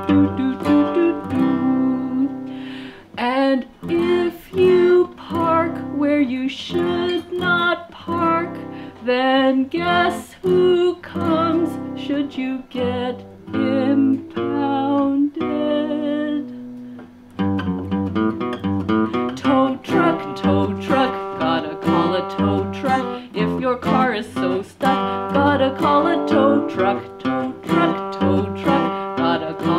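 A woman singing while strumming chords on a steel-string dreadnought acoustic guitar. The playing and singing drop away briefly just before halfway, then the strumming picks up again.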